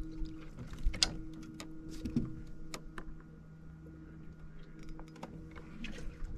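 Steady electric hum of a bass boat's bow-mounted trolling motor, with scattered sharp clicks and knocks from handling on deck, the loudest about a second in, as a small bass is brought aboard.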